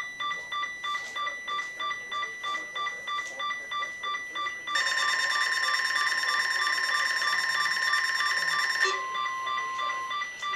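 Electronic alert beeping from NOAA weather radio receivers: a rapid pulsing beep, about three a second. From about five seconds in, a louder, denser alarm tone is layered over it for about four seconds, and a steady lower tone carries on after it until near the end.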